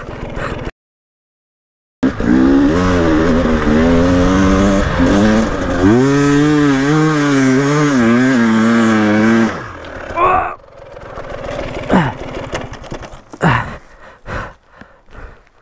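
KTM 300 two-stroke enduro bike's engine revving hard under load on a steep sand hill climb, its pitch wavering up and down, starting about two seconds in after a brief silence. Near the middle the engine note drops away, leaving quieter uneven noise with a few short sharp sounds as the climb fails short of the top.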